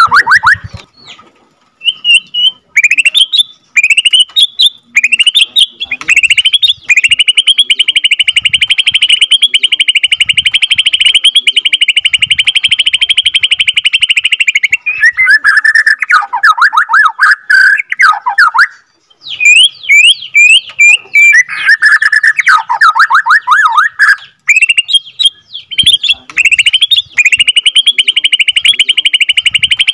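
Borneo white-rumped shama (murai batu) singing loudly. Short, fast phrases lead into a long rolling trill held for about seven seconds, the 'ngerol' prized in shama song. Then come two runs of rapid falling notes and another long trill near the end.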